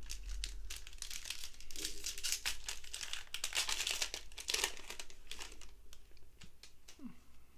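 Plastic wrapper of a football trading card pack torn open and crinkled in the hands, a dense crackling that is busiest in the middle and thins out near the end.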